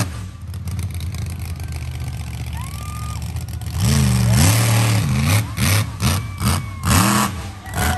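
Monster truck engine idling, then from about four seconds in revved in a string of quick throttle blips, the pitch sweeping up and falling back with each one.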